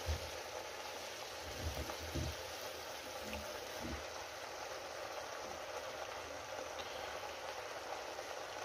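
Rabbit meat sizzling steadily in oil in a kazan, with a few soft thumps as potato pieces are dropped in on top.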